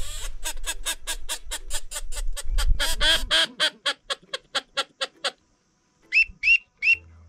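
Duck call blown to imitate teal: a fast run of about two dozen short quacking notes that trails off and slows over about five seconds, then three short whistled peeps near the end.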